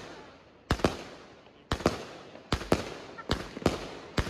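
Volt 1-inch 'Final Gold' fireworks cake firing: sharp bangs of tubes launching and shells breaking, roughly two a second and often in close pairs, each one fading away before the next.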